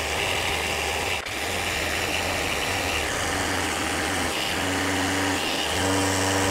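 Festool Rotex 6-inch random-orbit sander running steadily against the edge of an elm slab, sanding off dried CA glue. A higher hum comes in and out during the second half.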